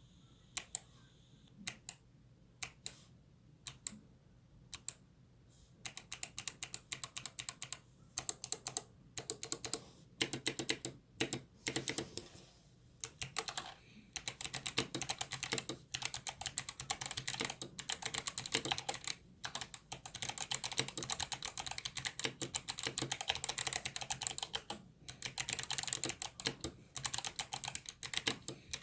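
Mechanical keyboard with Kailh Box Jade clicky switches being typed on: a few single key presses about a second apart, then fast continuous typing from about six seconds in, broken by brief pauses.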